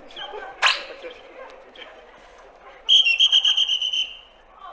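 A long latex modelling balloon rubbing and squeaking as it is handled, with one sharp squeak early on. About three seconds in comes a shrill, rapidly trilling whistle lasting about a second.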